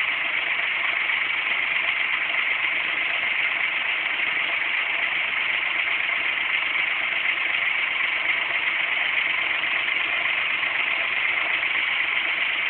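Mini microbubble generator running underwater in a foot bath, filling the water with microbubbles: a steady, even hiss that does not change.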